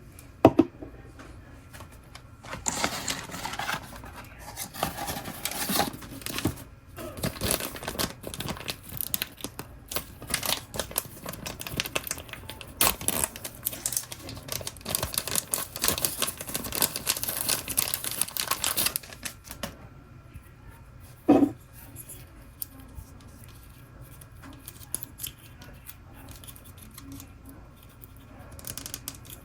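Blind-box toy packaging being torn open and crinkled by hand: a long stretch of rustling and tearing, with a sharp click near the start and another a few seconds after the rustling stops.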